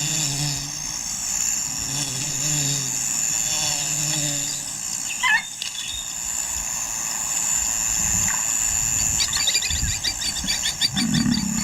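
Bush ambience: a steady high insect drone, with a low pulsing hum in the first few seconds. A brief wavering bird call comes about five seconds in, and fast rhythmic chirping, several a second, starts about nine seconds in.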